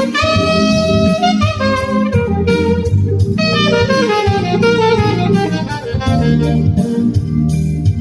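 Instrumental music with a saxophone-like lead playing sustained melodic notes over bass and drums.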